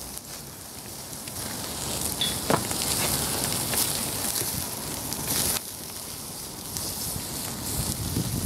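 Pork chops sizzling on the wire grill of a disposable foil charcoal barbecue, the burning charcoal crackling under them with scattered sharp pops.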